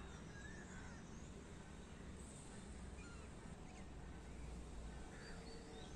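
Quiet steady background hum and hiss, with a few faint bird chirps, one about half a second in.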